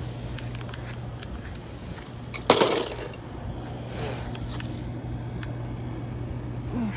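A Lego plane model hits the ground with one loud crash about two and a half seconds in, its plastic pieces clattering, over a steady low hum and a few small clicks.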